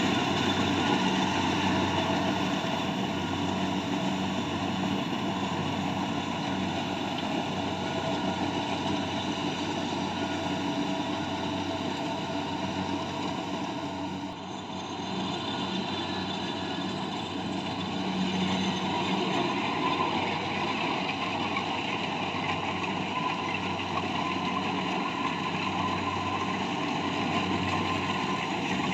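Rice harvesting machine's engine running steadily, with a brief dip in level about halfway through.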